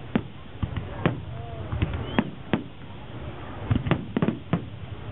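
Aerial firework shells bursting in irregular succession: a dozen or so sharp bangs, coming thicker near the end.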